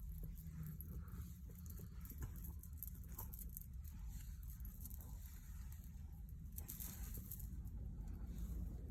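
Faint rustling and scattered light taps over a low steady hum, the sound of handling close to the microphone.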